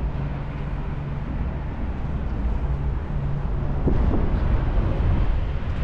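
Outdoor ambience: a steady low rumble, with a low hum that fades out about three seconds in.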